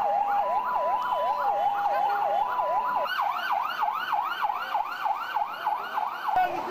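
Emergency vehicle sirens. For the first three seconds a two-tone siren switches between a low and a high note about once a second, overlapped by a fast rising-and-falling sweep. After that only a rapid yelp remains, about three sweeps a second.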